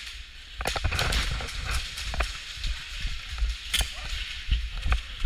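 Irregular sharp snaps and clicks of airsoft guns firing and BBs striking plywood walls, several close together about a second in, with footsteps thumping on a concrete floor.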